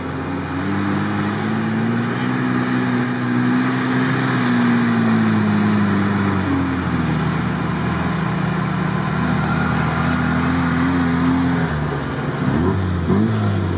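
Off-road vehicle engine labouring through swamp mud: a steady drone whose pitch rises and falls slowly with the throttle, easing off about seven seconds in, rising again, then dropping near the end.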